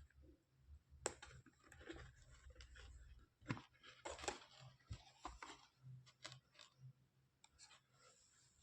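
Faint, irregular clicks and taps of small plastic toy pieces being handled, with a few louder clicks about a second in and around the middle.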